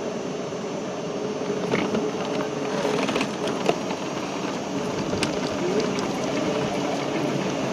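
Busy city street noise: traffic running, with scattered short clicks and knocks, the sharpest a little after halfway.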